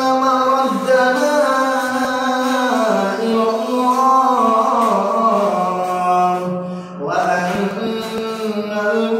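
A man reciting the Quran in a melodic, drawn-out chant, holding long notes that step slowly up and down. One phrase ends about seven seconds in, and after a short breath the next begins.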